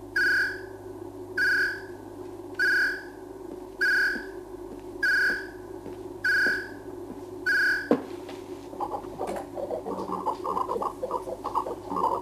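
Electronic science-fiction computer sound effects: a clean beep repeating about every 1.2 s over a steady low hum, seven times, then a sharp click about eight seconds in, followed by fast bubbling electronic chatter.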